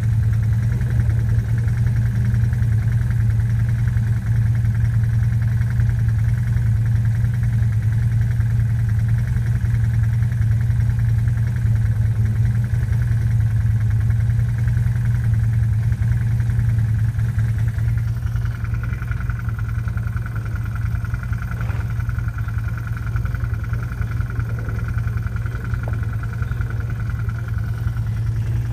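Corvette's engine running steadily at low revs, a deep even drone. A faint high steady whine joins about two-thirds of the way in.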